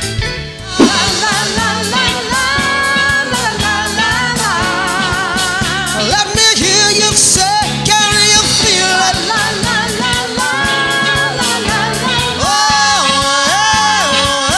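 A woman singing lead with vibrato over a band. The music dips briefly and switches to this song about a second in.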